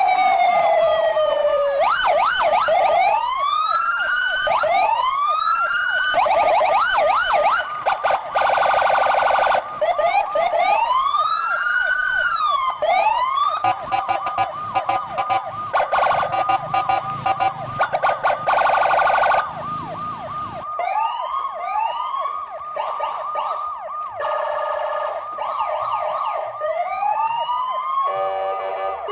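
Several electronic toy sirens sounding at once: repeated rising and falling whoops over a steady high tone, thin and tinny with no low end. The sound drops in loudness about two-thirds of the way through.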